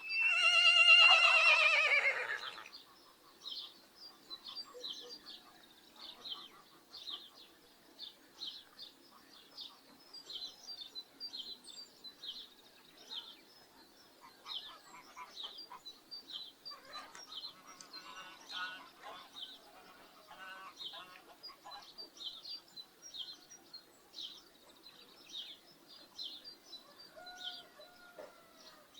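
A rooster crows once, loud and about two and a half seconds long, its pitch falling at the end. After that a small bird keeps chirping at a steady pace, about one and a half chirps a second, with scattered faint poultry calls and a short honk-like call near the end.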